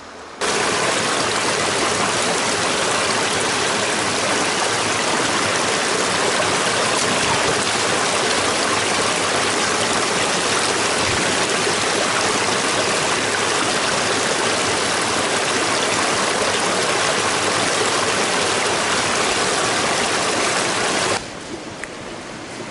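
Small forest brook spilling over a cascade between mossy boulders: a loud, steady rush of water close to the microphone. It starts abruptly about half a second in and cuts off near the end, leaving a much quieter background.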